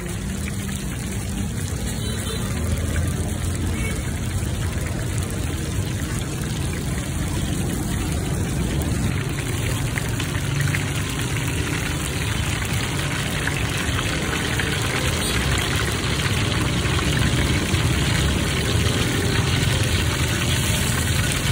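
Dumplings sizzling and bubbling in a wok of hot deep-frying oil, a steady crackling hiss, over a steady low rumble.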